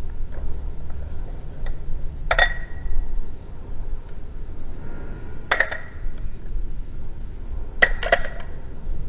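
Balisong handles clacking together as the knife is flipped: three sharp metallic clinks with a short ringing tail, the last one a quick double.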